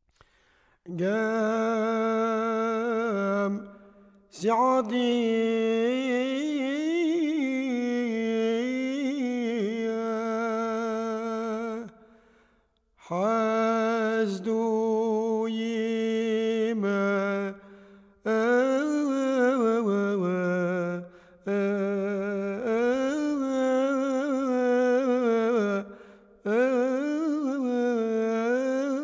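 A solo voice singing wordless, long-held notes with vibrato, in phrases of a few seconds broken by short pauses for breath.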